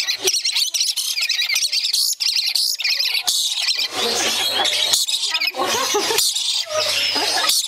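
A pair of lories, a dusky lory and a rainbow lorikeet, screeching and chattering in excitement: rapid shrill calls without a break, louder from about four seconds in.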